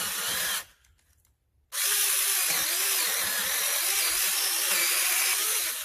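Zikopomi 6-inch 36-volt brushless cordless mini chainsaw cutting through a piece of maple about 1.5 inches thick. The motor runs briefly and stops about half a second in. It starts again about a second later and runs steadily for about four seconds, its pitch wavering under the load, and cuts off near the end.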